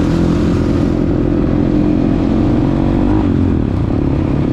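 Dirt bike engine running steadily while being ridden, its note dipping slightly about three seconds in, with wind noise over it.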